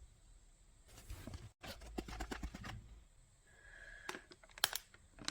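Hands handling toy packaging: crinkling, rustling and clicking, with a couple of sharp clicks near the end.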